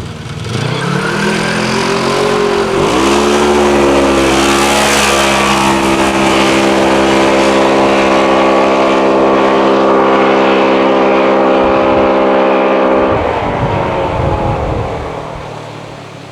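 2017 Polaris RZR XP 4 1000's parallel-twin engine under throttle: it revs up over the first few seconds, holds a steady high pitch for about ten seconds as the belt drive pulls, then drops off suddenly when the throttle is released near the end.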